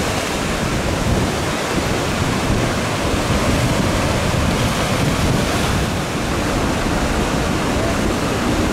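Ocean surf: a steady, unbroken wash of breaking waves, with wind on the microphone.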